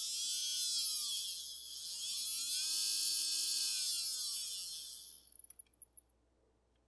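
Small electric motor of a 1950s Mantua Booster HO model locomotive running on test power, a whine over a high hiss whose pitch rises and falls twice as its speed goes up and down. It stops about five seconds in, followed by a few faint clicks.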